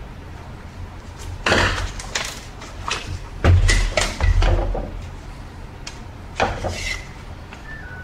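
Hard plastic parts of a partly disassembled Shark Rocket cordless stick vacuum knocking and clattering as they are handled and set down on a stone countertop: a handful of separate knocks, the loudest about three and a half seconds in.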